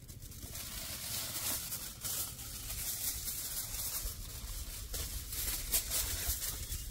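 Aluminium foil crinkling and rustling as it is unrolled, torn off and folded by hand, over a low steady rumble.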